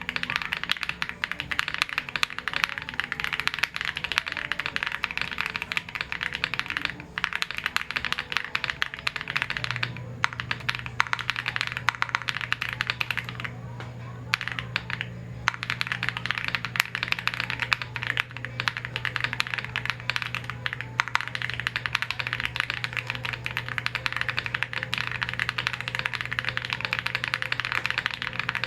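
Typing on a Tiger80 Lite mechanical keyboard with Akko Cream Blue V3 switches lubed with Krytox 205g0: rapid, continuous keystroke clacks, with a few brief pauses in the middle.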